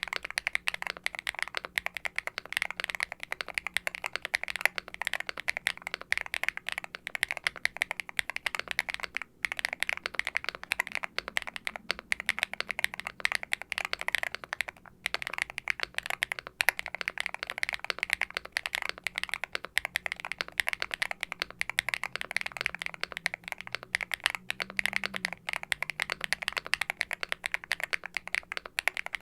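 Fast continuous typing on an aluminium Hex80 mechanical keyboard with a carbon fibre plate, Owlab Ti HE factory-lubed linear switches and ABS keycaps: a deep, clacky stream of keystrokes, broken by two short pauses.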